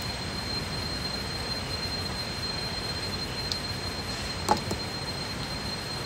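Steady rushing of a nearby stream, with a thin, steady high-pitched tone over it. A faint click comes about halfway through, and a short sharp sound about three-quarters of the way in.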